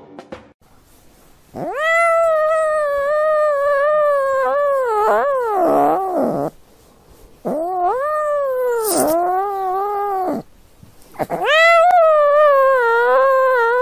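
Domestic cat meowing in three long, drawn-out calls, each wavering in pitch and sagging at the end. The first call lasts about five seconds and the other two about three.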